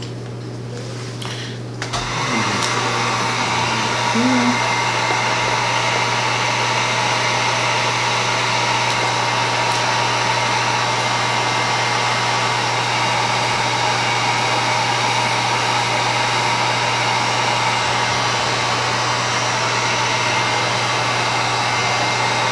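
Handheld electric heat gun switched on about two seconds in and running steadily: a constant fan rush with a steady hum, blowing over freshly poured resin.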